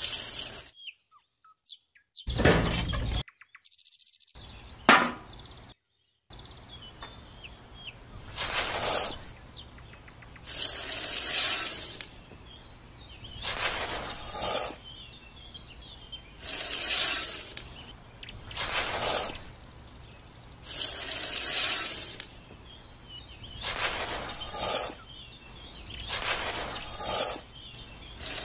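Wheat grains rattling as they are scooped with a small plastic scoop and poured into a miniature steel bucket, repeated about every two to three seconds from several seconds in.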